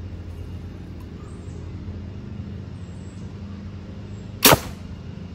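A compound bow shot once, about four and a half seconds in: a single sharp crack as the string is released and the arrow goes through the paper-tuning sheet into the target, over a steady low hum.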